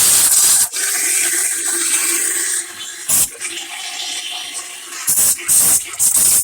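Water rushing and gurgling through a clogged refrigerator defrost drain as it is flushed clear, with several loud hissing bursts.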